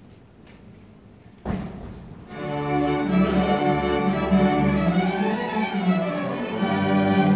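School string orchestra of violins, cellos and double bass starting to play. After a quiet moment there is a sudden loud stroke about a second and a half in, then sustained string chords from about two seconds in, with a line that climbs and falls in the middle.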